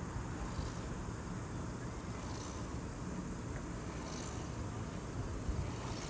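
Steady low rumble of riding an open chairlift, with faint short high chirps recurring about every two seconds.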